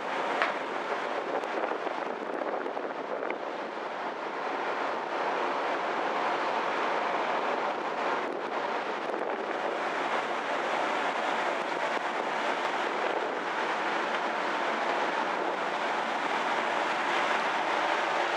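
Steady rushing noise of the car ferry Kuniga under way at sea, a mix of wind and water noise with the ship's running rumble. There is a short click about half a second in.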